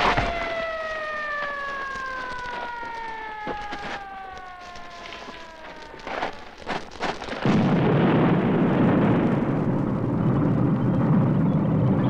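A long held tone slides slowly down in pitch, followed by a few sharp knocks. About seven and a half seconds in, the loud, steady rush of a waterfall's pouring water takes over.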